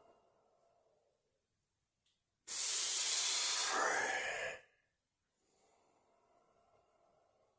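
A man breathing through the effort of a seated hip exercise rep: a faint inhale, then a loud, forceful exhale about two and a half seconds in that lasts about two seconds and ends with a short voiced rise, then another faint inhale.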